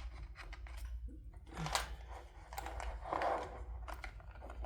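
Small plastic toy parts and packaging being handled: a series of crinkling rustles and light clicks.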